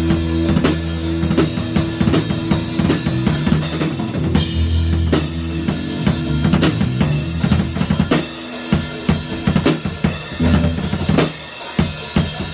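Live rock band jamming: a drum kit played hard with kick drum, snare and cymbals, over sustained electric guitar notes and chords.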